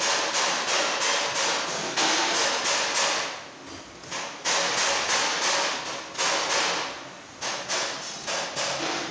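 Hammer blows on metal, about two to three a second in runs with short pauses, each strike ringing briefly: hand work during a brake lining replacement on a hoist brake.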